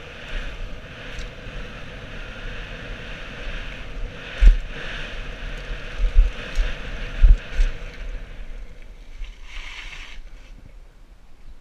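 Wind rushing over a helmet-mounted camera microphone and tyres rolling over a dirt trail during a fast mountain-bike descent, with several heavy thumps in the middle as the bike jolts over bumps. Near the end there is a short hiss, and the noise quietens as the bike rolls onto smooth asphalt.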